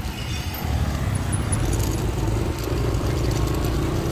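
Motorbike engine running under way, with wind and road noise; a steady engine hum settles in about a second and a half in.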